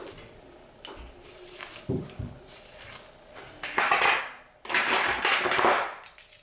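A few light clicks and handling knocks, then two hissing bursts of about a second each, one just after the other.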